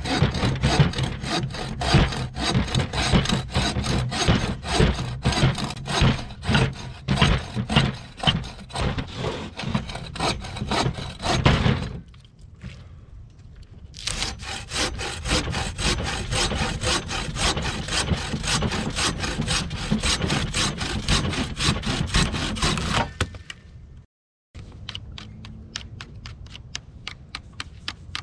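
Bow saw cutting through a dry branch with quick, even back-and-forth strokes, in two long bouts with a short pause between them. Near the end, fainter scraping strokes of a knife whittling a stick.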